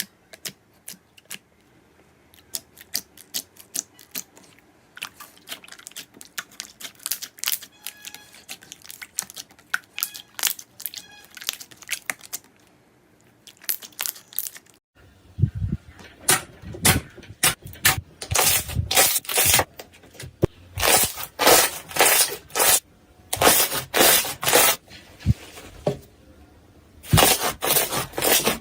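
Slime being squeezed and poked, giving a run of small clicks and pops, then, about halfway through, a louder stretch of crunchy crackling and popping.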